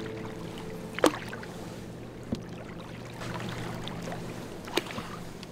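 Canoe paddling on sea water: paddle strokes with water splashing and lapping, and a few sharp knocks of the wooden paddle against the canoe, the loudest about a second in.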